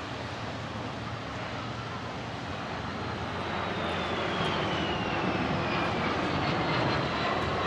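Fighter jet flying past: a rushing engine noise that grows louder through the second half, with a high whine falling in pitch as it goes by.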